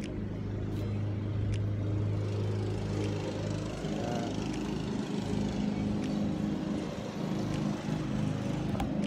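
A steady low engine hum, with a few faint clicks about a second in and near the end.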